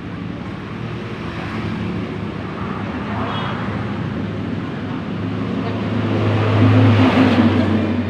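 Road traffic: a motor vehicle's engine hum grows louder and peaks about six to seven seconds in, as if passing close by.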